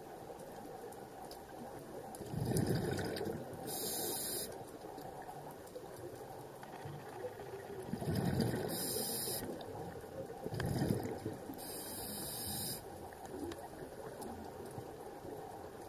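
Underwater scuba breathing picked up through the camera housing: three breaths, each a low rumbling burst of bubbles followed by the hiss of the regulator, over a steady watery background.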